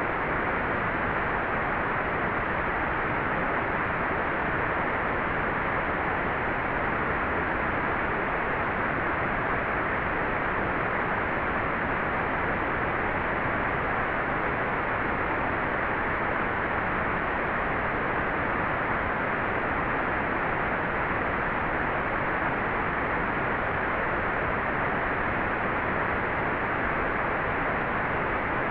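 Hair dryer running steadily as white noise: a constant, unchanging rush of air.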